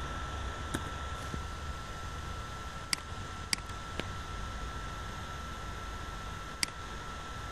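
A computer mouse clicking about five times, the clicks spread out over a few seconds, over a steady background hiss and low hum with a faint steady high whine.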